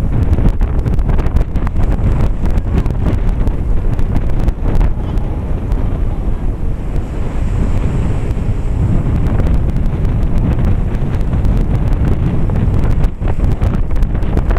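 Wind buffeting the microphone: a loud, steady low rumble broken by irregular crackles. A hiss swells and fades around the middle.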